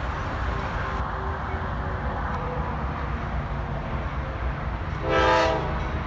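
Norfolk Southern freight locomotive's air horn giving one short blast about five seconds in as the train approaches a grade crossing, over a steady low rumble.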